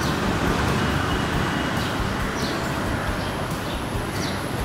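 Steady background road-traffic noise, with a few faint short high chirps.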